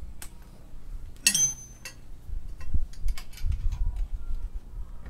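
Metal clinks and ticks of hands and tools on a stripped-down motorcycle's parts. The loudest is a single ringing metallic clink about a second in, with scattered lighter ticks and low bumps of handling after it.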